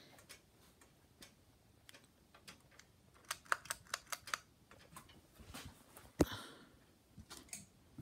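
Ceiling fan pull-chain switch being worked: a quick run of sharp metallic clicks as the chain is pulled, then a single louder click a couple of seconds later and a few lighter clicks near the end.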